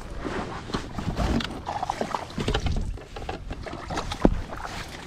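A hooked bass splashing at the surface beside an inflatable kayak as it is brought to the net, with knocks and rustles of handling against the boat. A sharp knock about four seconds in is the loudest sound.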